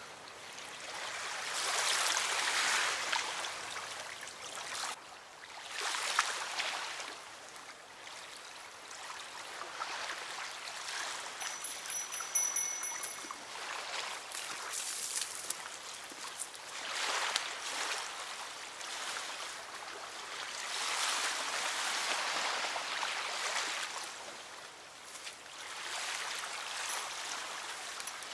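River water rushing and washing at the bank, swelling and fading every few seconds.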